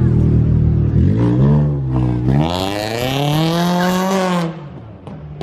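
A modified car accelerating hard as it pulls away from the meet, its engine note rising steeply about two seconds in, holding high with a harsh exhaust rasp for about two seconds, then falling away as it passes.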